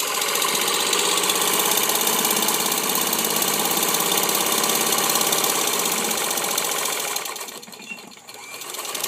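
Singer 15-75 sewing machine, belt-driven by its externally mounted motor, stitching through cotton at full throttle: a fast, steady mechanical clatter. It winds down about seven seconds in, then starts up again just before the end.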